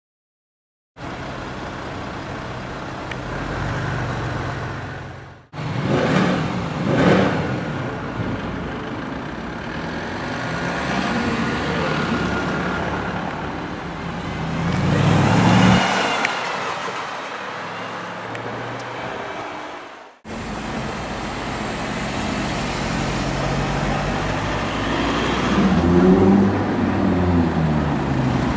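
Silence for about a second, then cut-together street recordings of cars driving through city traffic, breaking off suddenly twice. Midway, a Mercedes C63 AMG Black Series' V8 swells loud as it comes past. Near the end an engine's revs rise and fall as a white Audi R8 pulls away.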